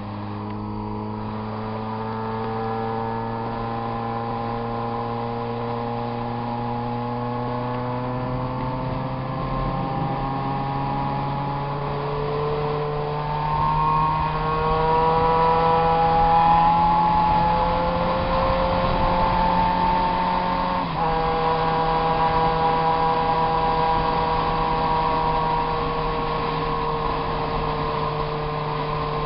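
XJ6's engine running under steady power, its note climbing slowly in pitch, then dropping a step about three-quarters of the way through and holding steady.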